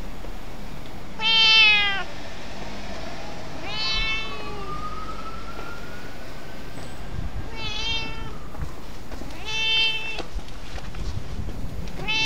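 A silver-tabby-and-white stray cat meowing repeatedly: about five short meows a couple of seconds apart, the first the loudest.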